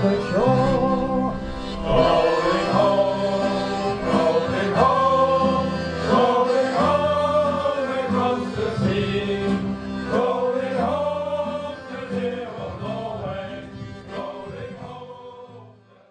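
A song sung by a group of voices with instrumental backing, fading out over the last few seconds.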